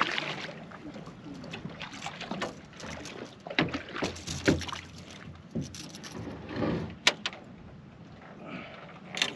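A hooked catfish splashing at the surface against the side of a boat, with scattered knocks and a few sharp clicks.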